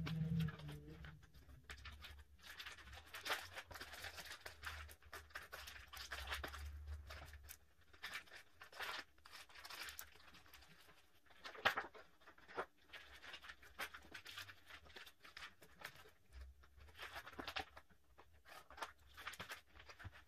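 Clear plastic binder sleeves rustling and crinkling as pages of photocards are handled and turned in a ring binder, with scattered light clicks and one sharper click a little past halfway.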